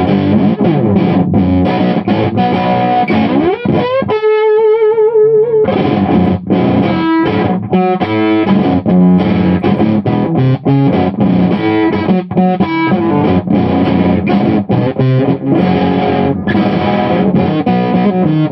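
Electric guitar on its humbucker pickup played through a modified Bell & Howell Filmosound amp with the gain maxed and the master volume down: a heavily distorted tone with a 'farty Velcro' breakup in the bass. Chords and riffs, with a slide up to a held note with vibrato about four seconds in.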